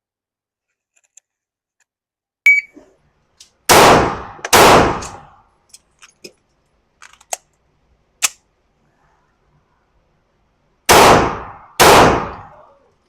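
A shot timer's short beep about two and a half seconds in, then handgun shots in two pairs, each pair under a second apart, with a few lighter clicks between the pairs.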